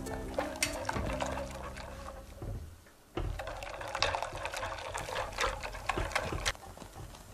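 Silicone whisk beating a thickening custard cream in a stainless steel saucepan, a rapid wet sloshing with quick ticks against the pot, starting about three seconds in. Before that, background music fades out.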